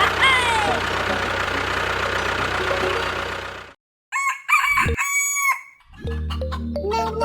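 A rooster crows at the start, followed by a steady noisy hum that cuts off a little past halfway. A short pitched call follows, and music begins near the end.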